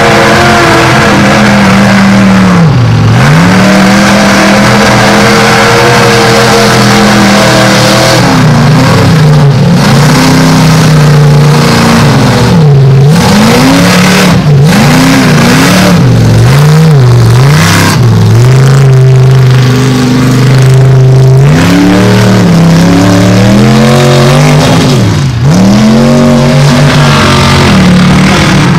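Ford Explorer mega mud truck's engine at full throttle through a mud bog, revving loud and high, its pitch repeatedly dropping and climbing again.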